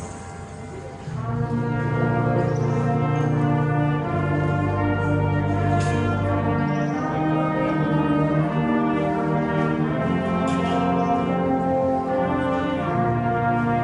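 Symphonic wind band playing, with the brass section prominent: after a softer start, the full band comes in loud about a second in and holds sustained chords.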